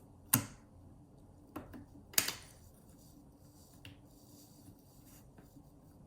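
Stretchy weaving loops and a hook being worked off the pegs of a plastic weaving loom: two sharp snaps, about a third of a second in and again about two seconds in, with a smaller snap between them and a light click later.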